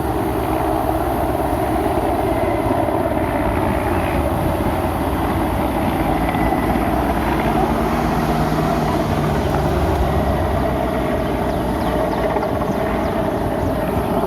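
Steady vehicle noise, running evenly with no distinct events.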